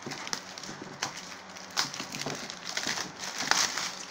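Handling noise of a textured plastic lunchbox being gripped and turned: irregular rustling and small clicks, with louder rustles a little under two seconds in and again about three and a half seconds in.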